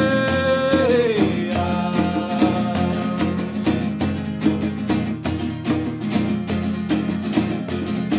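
Music: acoustic guitar strumming in a steady rhythm. A long held note slides down and stops about a second in.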